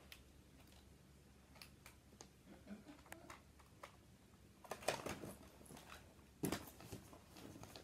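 Faint scattered clicks and rustles, with a cluster of louder knocks about five seconds in and a heavier thump about a second and a half later.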